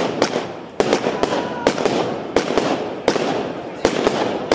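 Fireworks and firecrackers going off: sharp bangs about twice a second, unevenly spaced, over continuous dense crackling.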